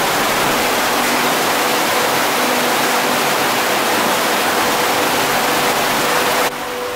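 Small waterfalls in a gorge stream, rushing water as a steady loud wash of noise; near the end the sound drops abruptly to a quieter level.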